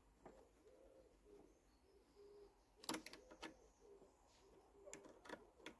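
Near silence: a few light metallic clicks of a socket being fitted onto the carburettor bolts, about three seconds in and again near the end, over a faint, repeated, low cooing of a bird.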